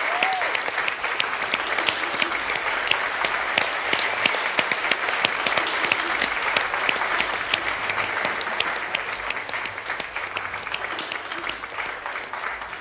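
Audience applauding, the clapping growing gradually quieter toward the end.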